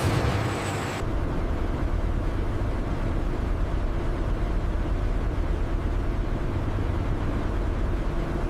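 A steady low rumble, like running machinery. A brighter, fuller noise cuts off abruptly about a second in.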